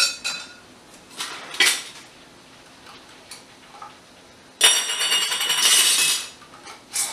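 Metal canning lids and screw bands clicking and clinking against glass mason jars. Past the middle comes a louder grating metallic rattle lasting about a second and a half, as a screw band is turned onto a jar's threads to fingertip tight.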